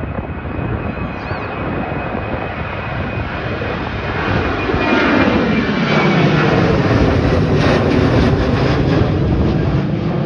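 Twin-engine jet airliner climbing out after takeoff and passing low overhead: a loud, steady jet engine noise that swells about halfway through as the aircraft comes overhead, with a high engine whine slowly falling in pitch.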